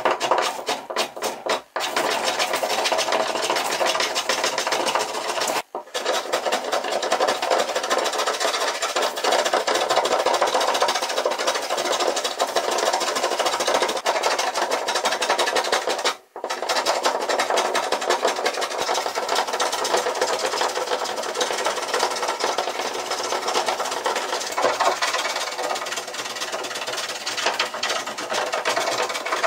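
Metal hand plane shaving a mulberry slab tabletop, taking the inlaid wooden butterfly keys down flush: a continuous scraping, cutting sound of repeated strokes, broken twice by a brief pause.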